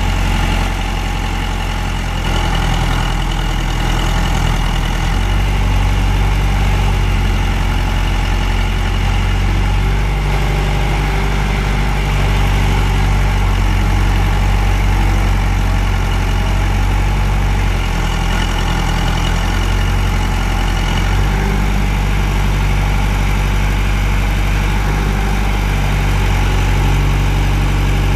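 John Deere 510D backhoe's four-cylinder diesel engine running steadily at idle, its low note shifting slightly a few times.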